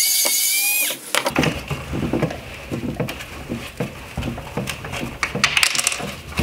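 A Torx screwdriver gives a short squeaking rasp for about a second as it turns a screw out of the headlight's plastic housing. Then comes a run of light plastic clicks, knocks and rattles as the housing and bezel are handled, with a flurry of sharp ticks near the end.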